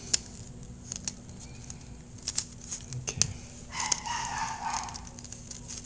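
Small plastic toy parts clicking and knocking as the panels of a Transformers figure are folded in by hand. A louder, higher-pitched sound lasting just over a second comes a little past the middle.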